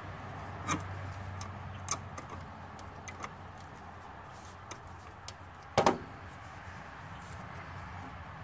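Two-piece metal handle of a Pittsburgh 4-ton floor jack being fitted together and handled: light clicks and knocks, with a louder double knock about six seconds in.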